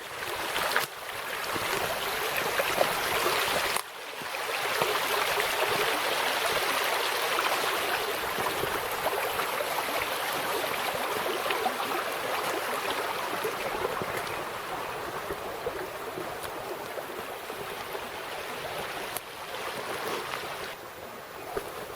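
Creek water rushing steadily, with a brief drop in the sound about four seconds in.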